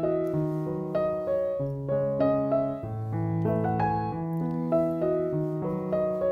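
Background piano music: single melody notes changing about every half second over longer held bass notes.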